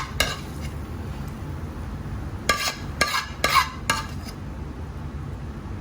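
A spoon scraping and knocking in a cooking pan while mashed eggplant bharta is spooned out into a bowl, a handful of short scrapes clustered a little past the middle, over a low steady hum.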